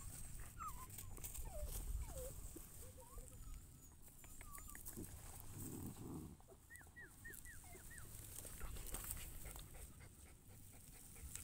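Soft dog whimpering: faint, thin whines and squeaks come and go, with a quick run of five short, high, falling squeaks about seven seconds in.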